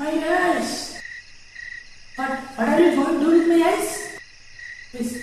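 Crickets chirping in short, evenly spaced pulses, with a person's voice speaking briefly at the start and again for about two seconds in the middle.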